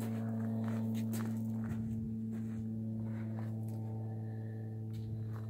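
A steady low hum with several even overtones, with a few faint footsteps crunching on gravel.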